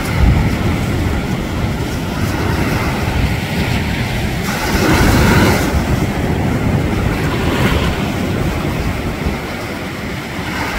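Ocean surf breaking and washing in, with wind rumbling on the microphone. A louder wave crashes about halfway through.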